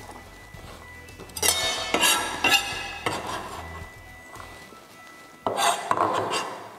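Clatter of a stainless steel bowl and kitchen knife on a steel worktop as diced onion is scraped into the bowl, then a knife chopping onion on a plastic cutting board. The clatter comes in two short spells of knocks and clinks, about a second and a half in and again near the end.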